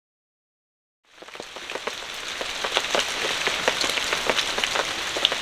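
Steady rain falling, with many separate drops tapping sharply close by. It fades in from silence about a second in.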